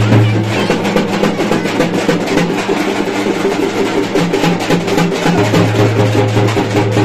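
Music with rapid, dense drumming over a deep held bass note; the bass note drops away after the first moment and comes back about five seconds in.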